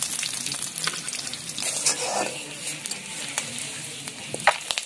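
Fried hilsa fish pieces sizzling in hot oil in a metal kadai, while a steel spatula scrapes and clicks against the pan as the pieces are lifted out. There is one sharp clack near the end.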